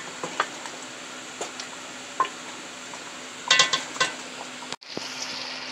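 Wooden spoon stirring chicken pieces in thick masala in an aluminium pot, with scattered knocks and scrapes against the pot over a steady sizzle of the masala frying. Near the end the sound drops out briefly and the sizzle comes back brighter.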